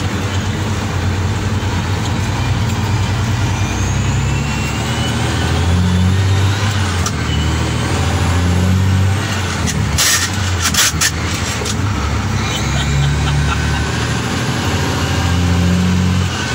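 Mack CH truck's diesel engine running under load, heard from inside the cab, its pitch shifting as it pulls, with a high whistle that rises twice. A short burst of hissing clicks comes about ten seconds in.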